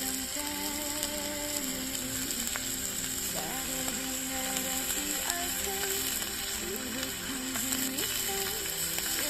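Gentle background music with a slow melody, over the steady crackle and hiss of a campfire.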